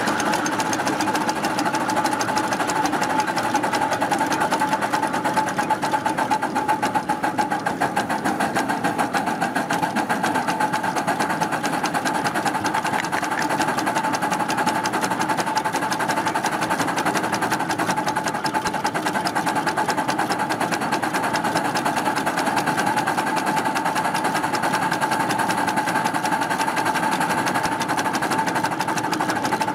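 Miniature live-steam 2-6-0 Mogul locomotive running under steam, heard from on the locomotive: a rapid, steady beat of its exhaust and running gear as it works up a steep grade.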